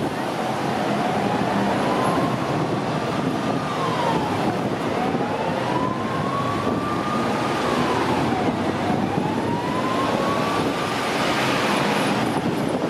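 Emergency-vehicle siren in a slow wail, rising over about three seconds and dropping back, three times, over the steady noise of a motorcade of cars and vans driving past.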